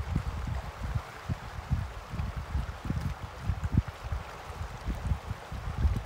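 Small sea waves washing and lapping among rocks and stones on a calm shore, a steady watery wash, with wind buffeting the microphone in irregular low rumbles.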